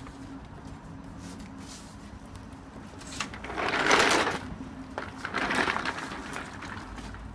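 A large mixing console's metal frame scraping and sliding as it is tipped up and shoved into a van, in two long noisy scrapes about three and five seconds in, the first the louder.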